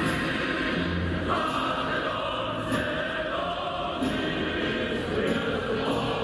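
Choral singing of a Russian song with musical accompaniment, in long held notes.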